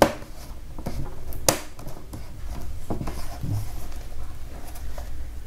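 Plastic bottom cover of a Dell Inspiron 3180 laptop being pressed and snapped into place: a few sharp clicks among the rubbing and handling of plastic, the sharpest about one and a half seconds in.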